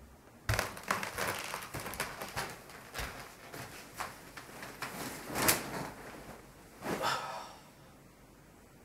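A person lying down on a bed: a run of rustling and soft thumps from clothing, mattress and duvet, loudest around five and a half seconds in, with a last louder rustle near the end before it settles.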